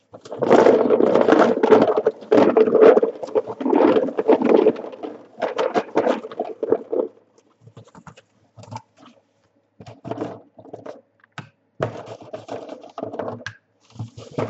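Loud rustling and scraping of hands handling things for about five seconds, then scattered light clicks and taps.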